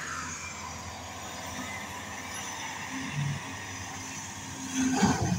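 Hyundai hydraulic excavator's diesel engine running steadily while it digs, with a brief louder, pitched burst about five seconds in.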